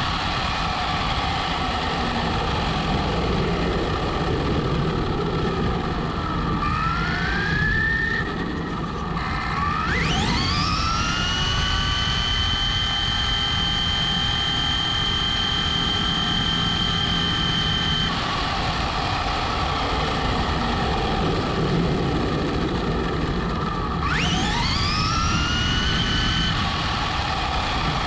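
Traxxas Slash Ultimate RC truck at full-throttle speed-run pace on a 2-cell battery, heard from a camera riding on board: a constant rush of tyres and wind under a high electric motor whine. The whine rises sharply about ten seconds in, holds steady for about eight seconds, then cuts off, and rises again for a couple of seconds near the end.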